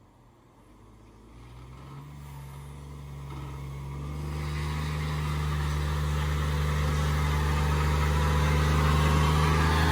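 Vehicle engine running and getting steadily louder, with a growing rush of noise over it from about four seconds in, as a burnout gets under way.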